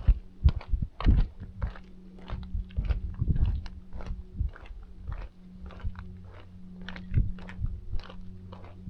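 Footsteps of a person walking on a path, about two steps a second, with a steady low hum in the background from about a second and a half in.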